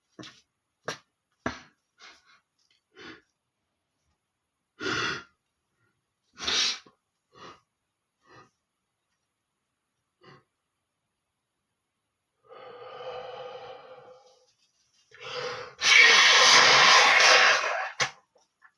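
A man's short, sharp sniffs and breaths, a few seconds apart, then a nasal, pitched sound lasting about two seconds. Near the end comes a long, loud blow of the nose, about two seconds, the loudest sound here.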